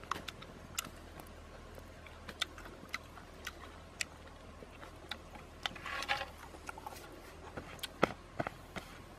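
Small fire of dry twigs crackling, with irregular sharp pops. A brief rustle about six seconds in, and a louder knock a couple of seconds later.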